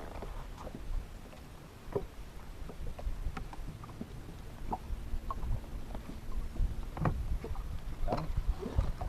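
Small fishing boat on the water: wind rumbling on the microphone, with scattered light knocks and clicks.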